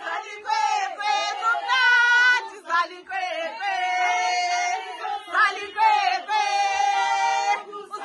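A group of women singing together in long held phrases.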